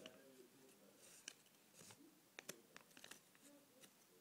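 Near silence: faint paper and handling rustle with a few soft clicks.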